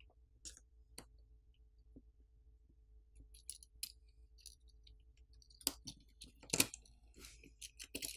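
Small scattered clicks and taps of fingers handling a smartphone's main board and frame as the board is worked loose and lifted out. The clicks are sparse at first and come closer together in the second half, the loudest about six and a half seconds in, over a faint steady hum.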